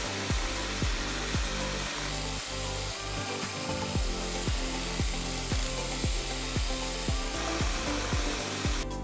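Belt grinder running with a steel knife blade held against its abrasive belt, a steady grinding hiss. Background music with a steady beat plays over it.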